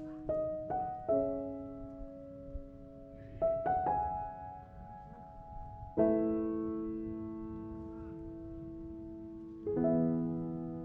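Slow solo piano music: single notes and chords struck and left to ring and fade, with a full chord struck about six seconds in and another near the end.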